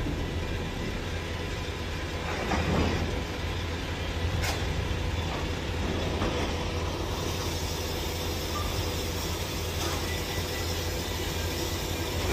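Steady low rumble of heavy rail-yard machinery as a gantry crane lifts a shipping container off a truck chassis. A sharp click comes about four and a half seconds in.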